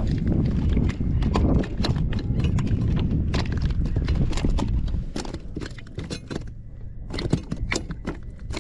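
Irregular hollow knocks and slaps of a hooked fish thrashing against a plastic fishing kayak, over a low rumble that fades about five seconds in.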